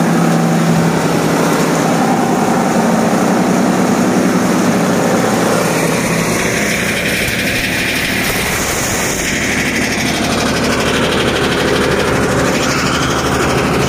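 Babool-wood toka cutting machine running, chopping acacia branches into chips: a loud, steady mechanical din of the drive and blades.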